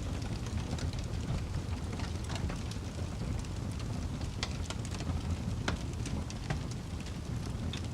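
Fire crackling: irregular sharp pops and snaps, a few louder ones around the middle, over a steady low rumble.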